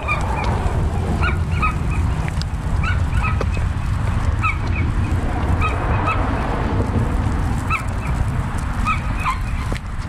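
Birds calling: short calls repeated every second or so, often two in quick succession, over a steady low rumble.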